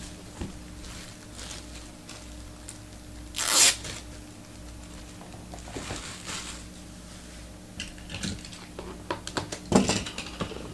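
Card packaging being torn open: one sharp, short rip a little over three seconds in, then crinkling and clicking as the wrapper and cards are handled near the end.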